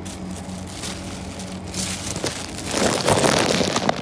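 Plastic bag crinkling and rustling right against the microphone, growing louder about halfway through, over a steady low hum from the Kawasaki C151 train.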